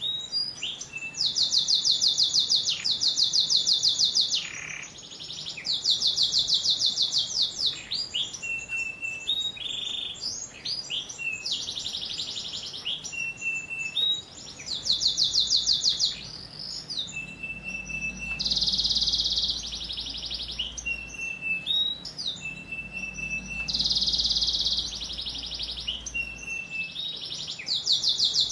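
Domestic canary singing a long varied song: loud, fast rolling trills a second or two long, alternating with short level whistled notes and quicker twittering phrases.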